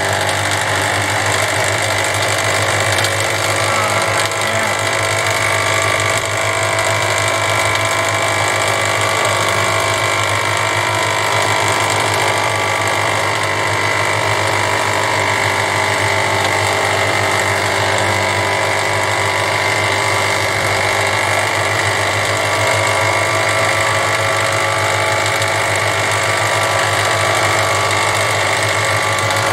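Thickness planer running steadily as a board feeds through it, its freshly sharpened cutterhead blades planing the wood.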